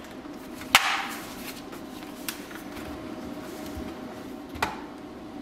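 A laptop knocking against a hard tabletop as it is handled and turned over: a sharp knock about a second in, a lighter one, and another sharp knock near the end.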